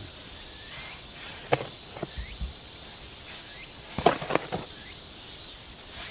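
A shovel scraping and knocking in a plastic tub as dry cement and sand are turned over for mortar: a couple of sharp scrapes about one and a half and two seconds in, and a quick cluster of louder ones around four seconds.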